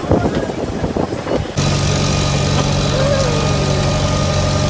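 An engine idling steadily with a low, even hum. It starts abruptly at a cut about a second and a half in; before that there is irregular, jumbled sound.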